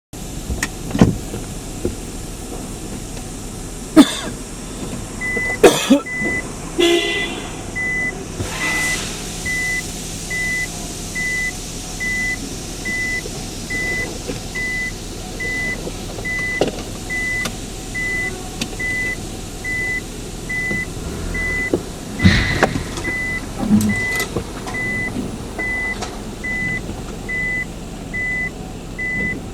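A vehicle's reversing alarm beeping at one steady pitch, about three beeps every two seconds, starting about five seconds in, over a running engine. Several sharp knocks and clunks come in the first ten seconds and again about two-thirds of the way through.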